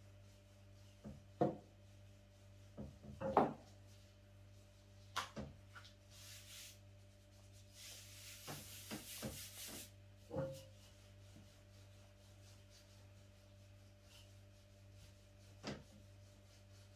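Things handled on a wooden table: scattered knocks and taps, and two brief hissing scrapes a little past the middle, over a steady low electrical hum.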